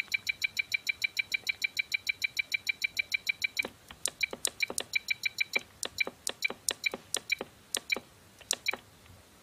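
Turnigy TGY-i6 radio transmitter beeping as its Up button steps a voltage setting upward: a fast run of short, high beeps, about eight a second, that slows about three and a half seconds in to separate beeps two or three a second.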